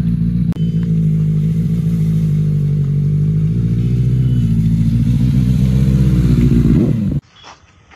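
Benelli TNT 600i's inline-four engine running steadily at low revs, rising slightly near the end before the sound cuts off suddenly about seven seconds in.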